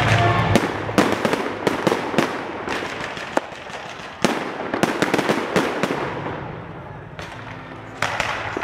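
Fireworks display: aerial shells and rising comets going off in a rapid run of bangs and crackling. A few sharper single bangs stand out, one about four seconds in and another near the end. The barrage thins out for a couple of seconds before picking up again.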